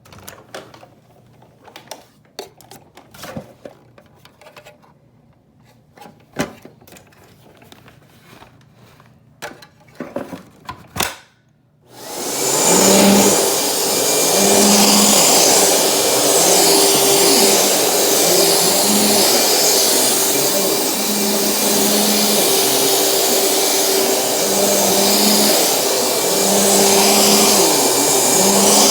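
Scattered clicks and knocks for about twelve seconds, then a Dirt Devil Featherlite bagged upright vacuum switches on and runs steadily with a high whine, a lower hum that swells and fades every second or so.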